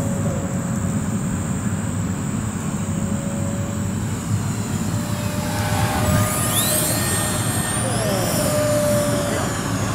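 Twin 70 mm electric ducted fans of a Freewing 737 MAX model airliner whining in flight over a low steady rumble. About six seconds in, the fan whine climbs in pitch and grows a little louder as the jet comes past low.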